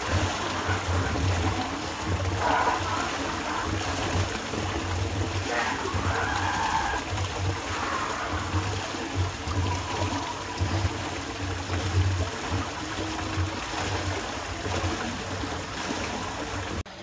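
Steady rush of running water, with a low rumble that comes and goes beneath it.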